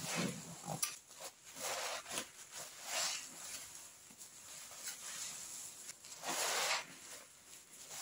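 Wet squelching and squishing of pine toilet cleaner being squeezed and worked, in irregular short bursts, with a longer hissing burst about six seconds in.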